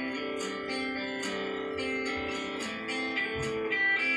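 Background music led by a plucked guitar, with notes picked in quick succession.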